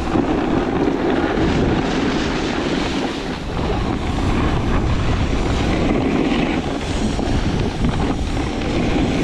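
Steady rushing of wind over the camera microphone, mixed with a snowboard's edge scraping over the snow as the rider carves down the slope.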